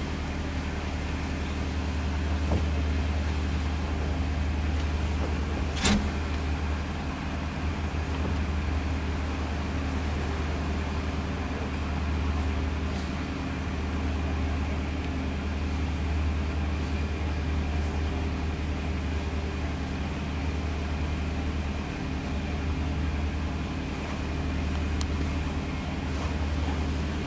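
Narrowboat's diesel engine running steadily, a constant low drone, with a single sharp knock about six seconds in.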